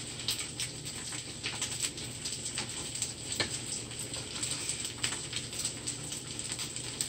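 Fried rice popping and sizzling in a hot buttered skillet, with irregular little crackles and snaps throughout.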